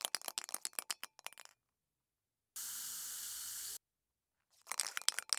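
Aerosol spray-paint can being shaken, its mixing ball rattling in quick clicks for about a second and a half. Then comes a steady hiss of spray lasting about a second, and the rattling starts again near the end.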